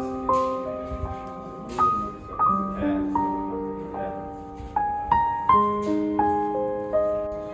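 Background music: a slow, gentle melody of struck notes that start sharply and fade, over held lower notes.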